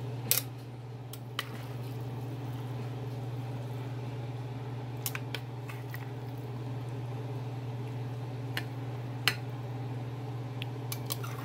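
Metal tongs clicking now and then against a glass bowl and a ceramic plate as noodles are lifted and served, over a steady low hum; the loudest clicks come just after the start and about nine seconds in.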